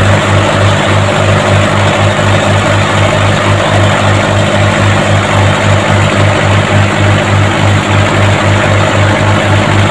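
Mitsubishi Colt Diesel four-cylinder truck engine, used as a fishing boat's inboard, running steadily with an even low throb about four times a second.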